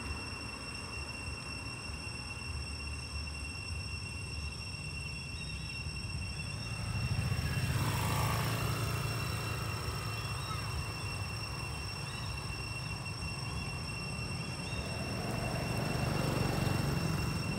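Road traffic passing over a steady low rumble: a vehicle goes by about eight seconds in, and a motorbike engine grows louder near the end.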